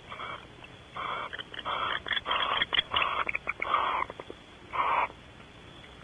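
Barn owls in the nest cavity giving a run of raspy, hissing calls: about seven short bursts, with a quick flurry of clicks in the middle.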